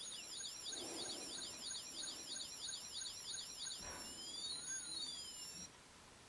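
LEGO City light-and-sound brick playing an electronic siren through its small speaker: a fast warble at about two and a half cycles a second. About four seconds in there is a click, and it switches to slower rising and falling wails, which stop shortly before the end.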